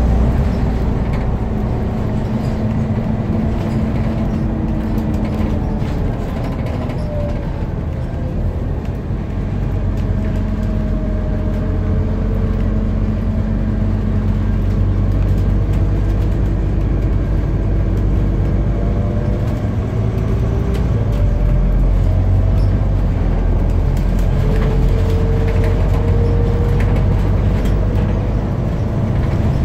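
Interior of a Scania CN230UB single-deck bus on the move: steady engine and road rumble, with whining tones from the drivetrain that rise and fall as the bus speeds up and slows down, and light rattles from the saloon.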